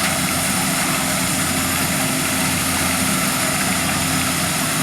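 Corn harvester with built-in sheller running steadily: an even engine drone under a wide hiss of machinery.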